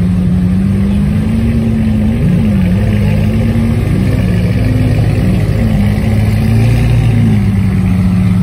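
Lamborghini Aventador SVJ's V12 engine running at a low, steady idle while the car creeps along at walking pace, its note wavering slightly up and down with light throttle.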